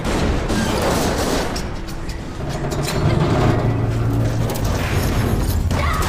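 Film action soundtrack: a music score over a rushing water roar and low rumbling booms. Steady low notes of the score come in about three seconds in.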